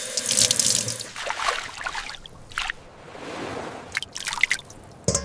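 Water splashing and trickling in the first second or so, then a few separate drips plinking, with quiet gaps between them.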